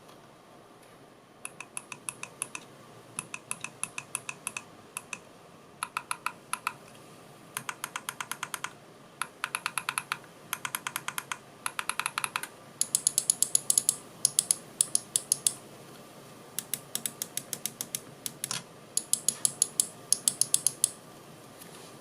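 Xenics Titan Mark II gaming mouse buttons clicked rapidly in short bursts, about eight clicks a second, with brief pauses between bursts.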